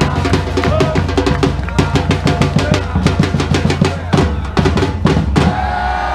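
Football supporters' drum band playing fast on bass drums and snare drums, with crowd voices chanting over it that come up near the end.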